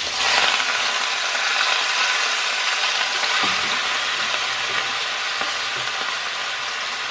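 Raw ground turkey sizzling and frying in hot olive oil in a large pot as it is dropped in by hand. The sizzle swells right at the start as the meat goes in, then holds steady.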